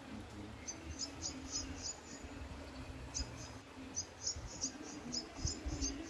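A small bird calling: runs of short, high chirps at about three or four a second, one brief bout and then a longer one starting about three seconds in.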